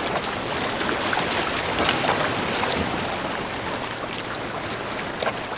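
Steady hiss and wash of surf running over a rocky shoreline, with a few light clicks near the end.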